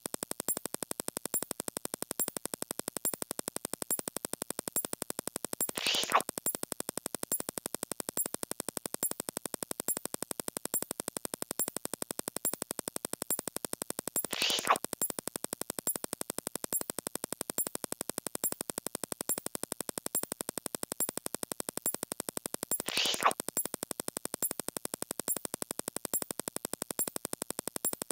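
A fast, perfectly regular stream of electronic clicks, many per second, ticking off the numbers as they count up. Three short, louder noisy sounds cut in about every eight and a half seconds.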